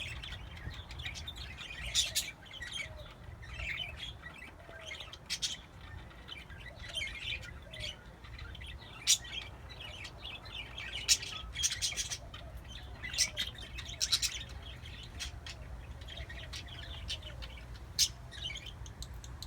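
Caged pet parakeets chirping and squeaking: a steady run of quick, irregular short calls, some louder and sharper than others, over a low steady hum.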